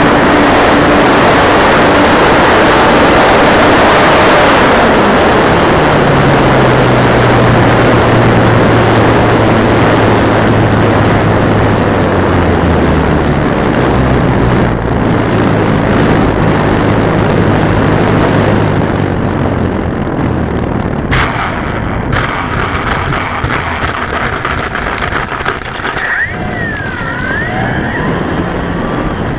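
Onboard sound of an E-flite Timber RC plane's electric motor and propeller under heavy wind rush, the motor's hum sinking lower as it is throttled back on the descent. About two-thirds through it gets quieter, with a short cluster of clattering knocks as the plane touches down on grass.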